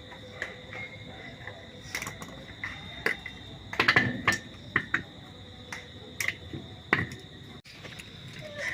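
Scattered sharp metallic clicks and knocks of hand tools working on an e-rickshaw's electric motor as it is taken apart, with a busier cluster of knocks about four seconds in. A steady high drone runs behind.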